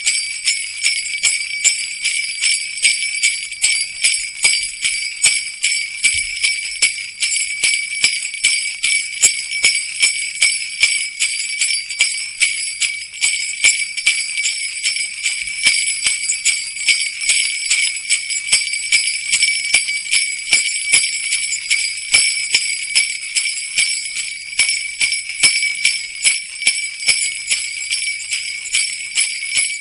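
Jingle bells shaken continuously in an even rhythm of about two shakes a second, a dense high jingling.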